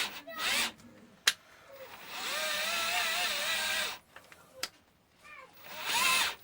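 Electric drill driving a thread tap into the stripped bolt hole of a pit bike engine block, run in short trigger bursts with one steady run of about two seconds in the middle, its motor pitch wavering as the speed changes. A sharp click a little over a second in.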